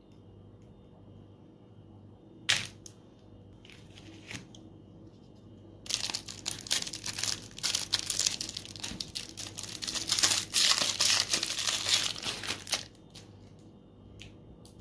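A sharp click, then dense crinkling and crackling for about seven seconds that stops suddenly.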